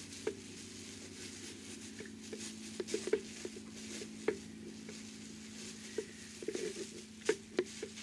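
Quilted cotton fabric with insulated batting rustling and shifting as hands pull and smooth it on a cutting mat, with scattered taps and a steady low hum underneath.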